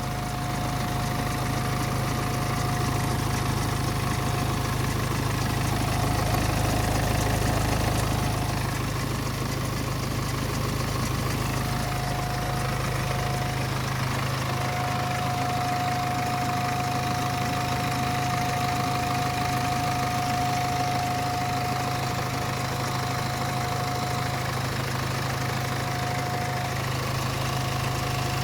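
BMW N47 2.0-litre four-cylinder diesel engine idling steadily, with a strange noise from a worn timing chain; a thin, steady high tone fades out and comes back several times. Replacing the chain cured the noise.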